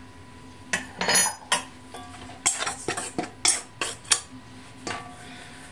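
Metal spoon clinking and scraping against a stainless steel mixing bowl while stirring dry flour and yeast together, a run of irregular knocks and scrapes lasting about four seconds.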